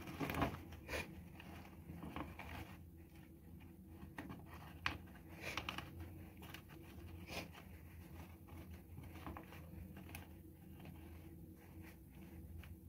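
Hands settling a juniper's roots into a pot of expanded clay and peat mix: soft rustling and crumbling with scattered light clicks.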